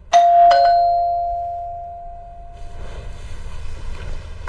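Doorbell ding-dong chime: a higher note, then a lower note about half a second later, both ringing out and fading over a couple of seconds.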